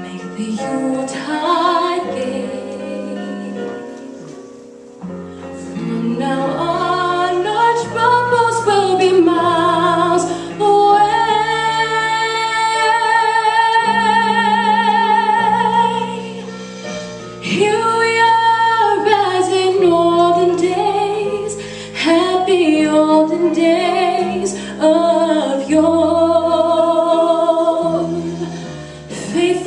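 Female vocal quartet singing in harmony over instrumental backing, with a long held note with vibrato in the middle of the passage.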